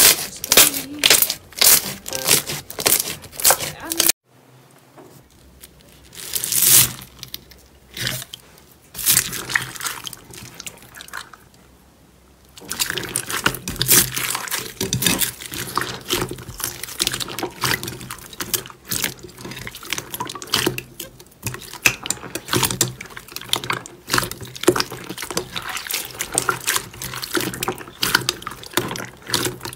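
Slime being squeezed and pressed by hand, giving wet, sticky clicks and pops. It goes quieter and sparser for several seconds early on, then turns into dense, steady crackling from about twelve seconds in.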